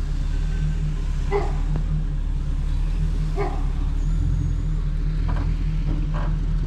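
A vehicle engine idling steadily, with a dog barking over it in single barks about every two seconds, the last ones fainter.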